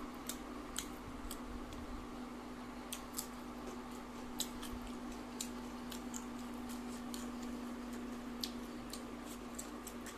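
Close-up eating sounds: irregular sharp little clicks and crackles as rice is mixed by hand with crisp shredded-potato fries and chewed, over a steady low hum.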